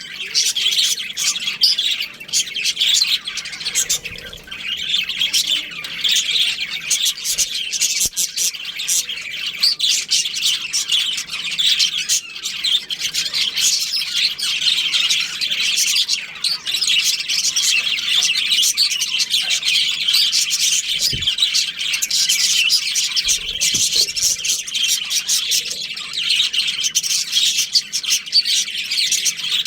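A colony of budgerigars chirping, many birds calling over one another in a dense, unbroken stream of short high chirps.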